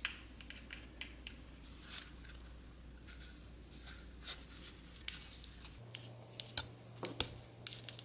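Small metallic clicks, taps and scrapes as a grease brush works inside the metal nose cone of a Milwaukee M12 impact driver. The taps come irregularly, several a second, and a few ring briefly like metal.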